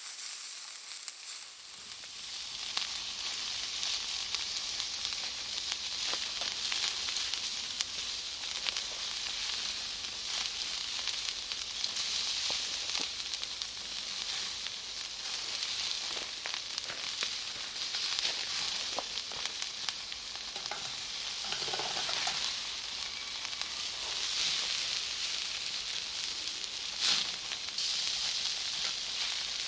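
Cut charcoal fire crackling and hissing with a dense stream of small pops, fading in over the first two seconds, with a louder pop near the end.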